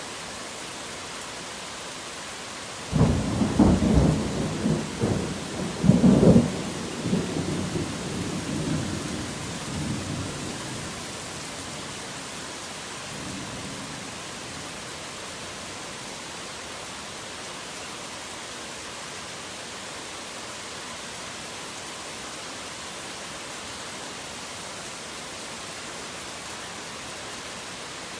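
Steady heavy rain with a thunderclap about three seconds in. The thunder rumbles on with a second loud peak a few seconds later and dies away over several seconds, with a faint further rumble after that.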